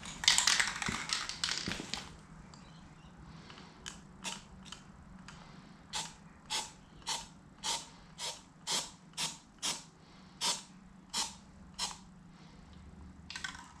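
Aerosol can of yellow road-marking spray paint hissing in a spray of about two seconds. From about four seconds in comes a run of about a dozen short, sharp bursts, roughly two a second, as paint is dabbed through a tyre-lettering stencil.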